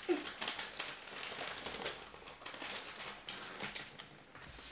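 Wrapping paper rustling and crinkling, with irregular small crackles and tape handling, as gifts are being wrapped by hand.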